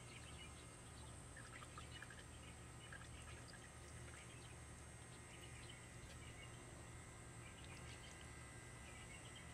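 Near silence: faint outdoor ambience with scattered bird chirps over a low steady hum.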